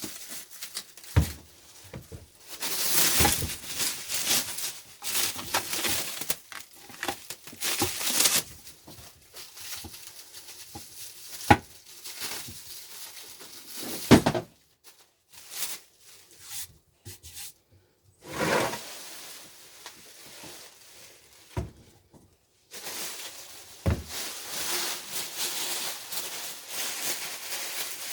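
Packing material being pulled off a propane furnace: plastic wrap crinkling and tearing in irregular bursts, with a few sharp knocks from the furnace's metal body being handled.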